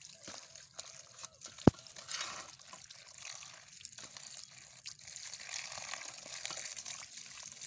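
A stream of running water splashing into a metal basin of sliced bitter gourd as hands swish and rub the pieces to rinse them. One sharp click sounds about a second and a half in.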